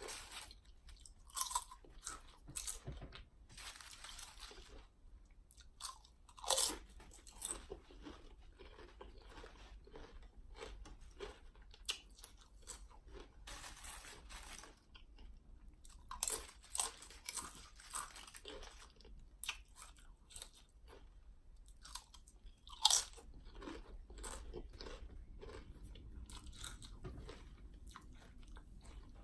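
A person biting and chewing Lay's Flaming Hot Dill Pickle potato chips: irregular sharp crunches throughout, the loudest about twenty-three seconds in.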